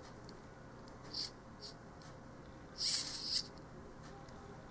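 RC helicopter servo's plastic gear train and case being worked in the hands. There are a few short, high-pitched scratchy whirs, the longest about three seconds in, while the output is moved toward centre.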